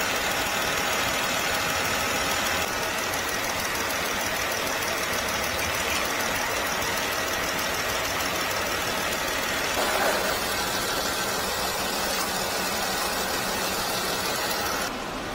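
The Jeep Wrangler's 3.6-litre V6 idling steadily as it warms up after a radiator refill, run with the radiator cap off to purge air bubbles from the cooling system.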